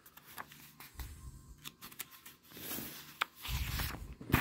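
Paper page of a hardcover picture book being turned by hand: soft rustling with a few sharp ticks, the loudest swish near the end.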